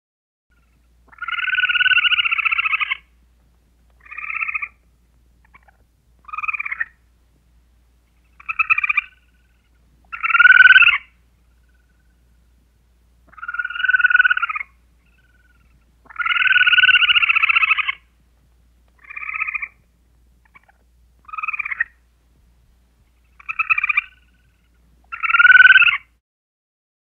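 Squirrel calls: a series of about eleven buzzy, rasping calls, two of them about two seconds long and the rest short, with clean silence between them. The same sequence starts over about halfway through, as a looped recording.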